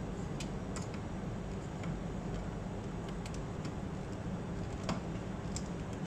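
A hand screwdriver tightening a screw into the metal frame of a glass wine-cooler door, giving small, irregular ticks a few times over a steady low hum.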